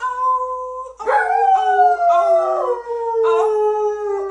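Dog howling along to a sung tune: long, held howls, with one that slides slowly down in pitch from about a second in.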